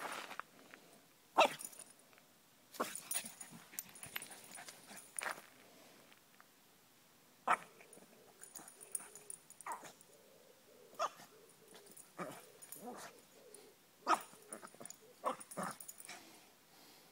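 A pug mix making short dog sounds at irregular intervals as it digs and roots in loose soil. The loudest comes about a second and a half in.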